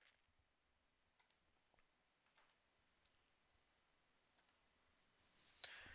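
Near silence broken by a few faint, short computer mouse clicks spaced a second or more apart, with a slightly louder click near the end.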